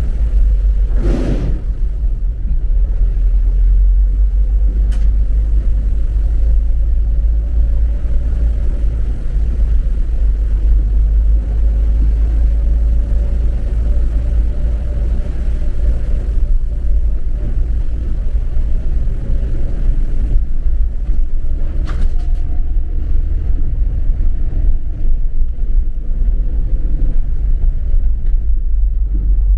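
Steady low rumble of a car driving, heard from inside the cabin, its tyres running through standing floodwater on the road; a louder rush of spray about a second in.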